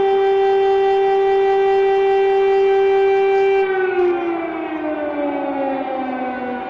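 Civil defence siren sounding a steady, loud tone, then about three and a half seconds in its pitch starts sliding down as it winds down.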